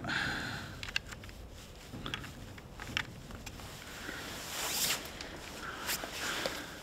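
Handling noise from an Umarex HDX .68 pump-action air shotgun: scattered small clicks and knocks from its parts, with a longer sliding rub about four and a half seconds in.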